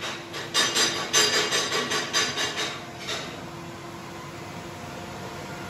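TIG welding arc on a steel pipe, crackling in a regular pulse about four times a second, then settling into a steady hiss for the last couple of seconds.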